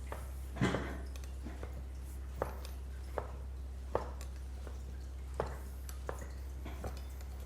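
Scattered short soft taps and clicks from hands working on a body during manual therapy, about seven in all, the one about half a second in the loudest, over a steady low hum.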